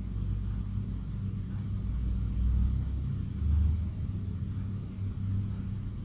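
Low, steady rumble like an engine or vehicle running, swelling in loudness a few times.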